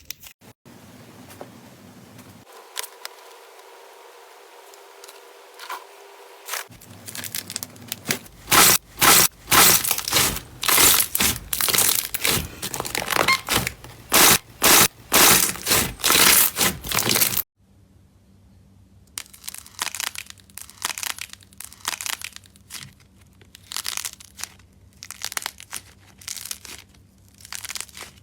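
Slime being squeezed and pressed by hand, giving rapid sharp crackling and popping. The crackling is faint for the first several seconds, comes in loud and dense after about eight seconds, stops abruptly, then resumes more softly.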